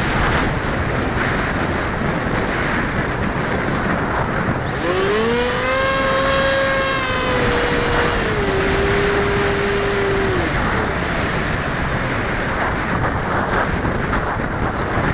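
Wind rushing over the microphone throughout, with a HobbyKing Bixler RC plane's electric motor whining in from about five seconds in, rising, then dropping in pitch near the eight-second mark as it flies past and fading out a couple of seconds later.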